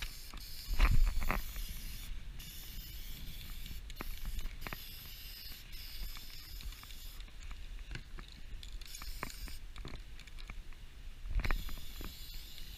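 Aerosol spray-paint can hissing as white paint is sprayed onto a duck decoy, in bursts that stop and start, with clicks and a few knocks from handling the can and the decoy, loudest about a second in.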